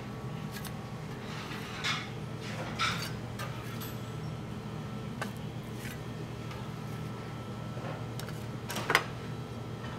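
Steady low kitchen hum with a few sharp clinks of plates and utensils, the loudest near the end.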